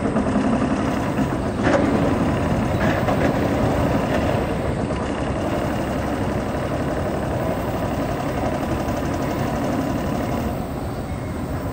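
Amtrak GE P42DC diesel locomotive running under power as it approaches with a passenger train, its 16-cylinder diesel engine a steady, loud drone. A short sharp noise stands out about two seconds in, and the sound eases slightly near the end.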